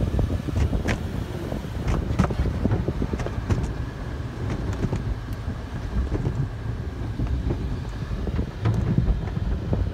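Car wash mitter curtain heard from inside the car: hanging cloth strips drag and slap over the roof and glass with irregular sharp taps over a steady low rumble of the tunnel.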